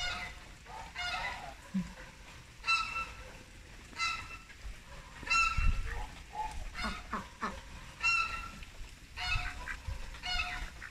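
White domestic ducks quacking over and over, short calls about one a second, with a few soft knocks about halfway through.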